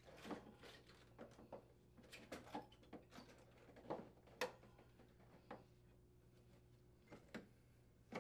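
Faint, scattered clicks and knocks as an air conditioner's evaporator coil is shifted back into place against the plastic blower housing, the strongest knock about halfway through.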